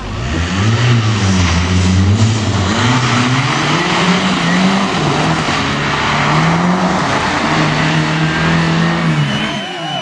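Audi A4 saloon driven hard on a loose dirt rally stage: the engine revs up and falls back several times through gear changes, over a hiss of tyres on gravel. Later it holds a steadier note, and just before the end the sound drops away abruptly.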